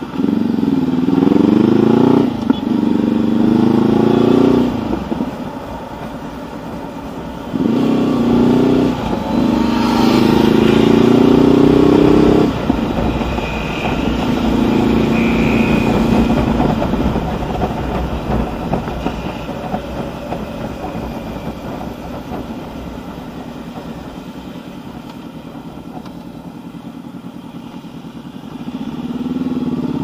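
Honda CB500X parallel-twin engine pulling away from a stop and accelerating up through the gears. Its pitch climbs in several steps, with a short drop at each upshift. It then settles and eases off over a long stretch with wind rush, and pulls hard again near the end.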